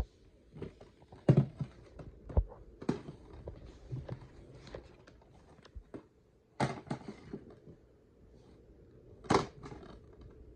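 Handling noise from a plastic DVD case held and turned over in the hand: scattered knocks, taps and rustles. The loudest come about a second in, midway through and near the end.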